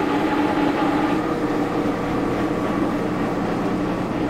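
Old milling machine running, its spindle turning with a steady, even hum.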